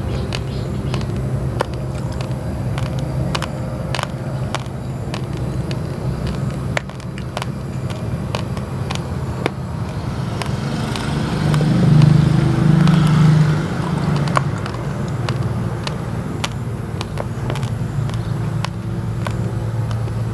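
Raw rice grains crunching between the teeth in sharp, irregular clicks, over a steady low drone that grows louder for a few seconds near the middle.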